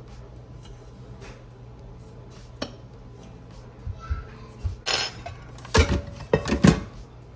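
Kitchen clinks and clatter: a coffee scoop tapping in a glass jar of ground coffee, then a stainless steel carafe being handled, with the loudest clanks near the end.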